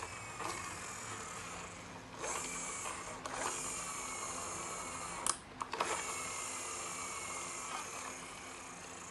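A small electric motor whirring, its pitch slowly sagging, with a few sharp clicks and a brief stop and restart about halfway through.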